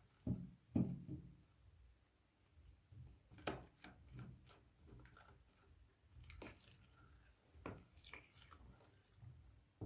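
Faint hand-handling noises from slime-making materials: two soft knocks within the first second, then scattered light clicks and taps.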